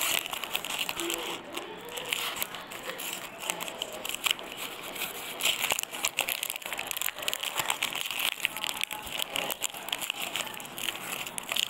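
The wrappers of a Cadbury Dairy Milk Silk chocolate bar, its purple plastic outer wrapper, white inner paper and gold foil, crinkling and rustling as fingers peel them open. The sound is a dense, unbroken run of small crackles.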